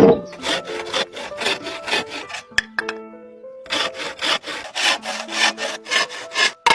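Bamboo being sawn by hand in quick back-and-forth strokes, about five a second, in two runs with a pause of about a second halfway through. Background music plays underneath.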